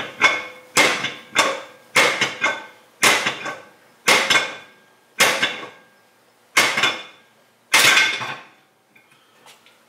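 Metal clanks as a Jeep Wrangler's rear brake rotor, flipped and held on by half-tightened lug nuts, is yanked outward as a makeshift slide hammer, knocking against the nuts to drive the axle shaft out of the axle housing. The knocks come about once a second, often as a quick double, and stop near the end as the shaft works loose.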